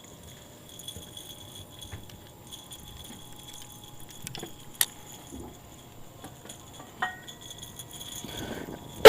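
Quiet background with a steady high-pitched whine and light clinking, broken by a sharp tap about five seconds in and a knock with a short ring about seven seconds in.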